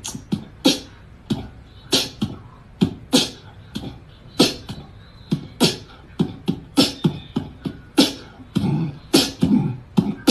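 Beatbox-style mouth percussion: a quick, uneven run of sharp hissing hits mixed with low thumps.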